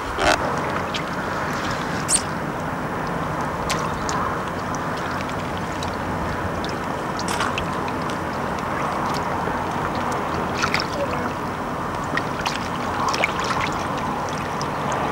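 Shallow lake water sloshing and trickling as a big common carp is held in the margin and released, stirred by the fish and the angler's hands, with a few light knocks scattered through it.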